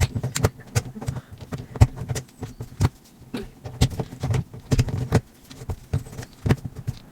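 Irregular sharp plastic clicks and taps, a couple a second, as a sanded Rubik's cube is handled roughly and wiped clean of sanding dust.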